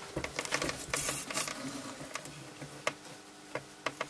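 Handling noise: a quick flurry of small clicks and rustles for about a second and a half, then a few scattered single clicks, as the phone and camera are moved about over a plastic seed tray.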